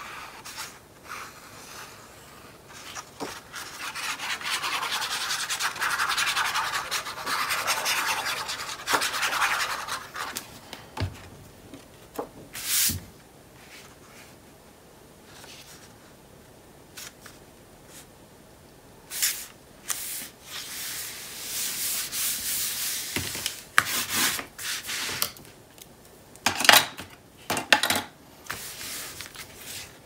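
Hands rubbing and smoothing a glued sheet of patterned paper down onto cardstock. The rubbing comes in two longer stretches, with scattered short taps and paper handling in between.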